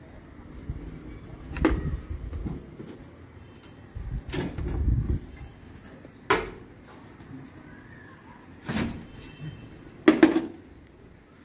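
A hammer knocking on a wooden window frame while a glass pane is fixed in place. There are a handful of separate knocks a couple of seconds apart, with a quick double knock near the end.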